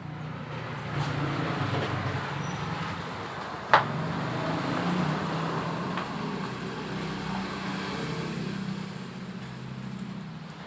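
A steady low motor hum, with one sharp click a little before four seconds in.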